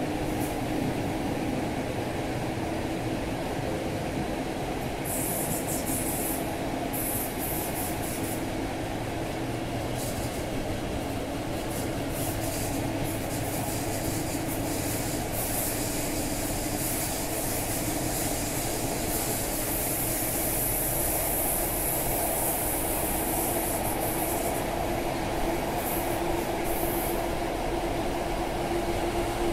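Passenger train coach running along the track, heard at an open window: a steady rumble of wheels on rails and rushing air. Bursts of high hiss come and go from about five seconds in.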